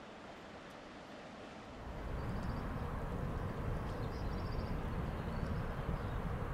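Harbour waterfront ambience: a steady wash of water and wind noise. About two seconds in a louder, low rumble sets in and holds, with a few faint high chirps over it.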